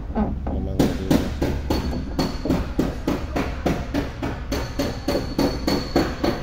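Rapid, evenly spaced hammering, about four blows a second, starting about a second in, over a low steady hum.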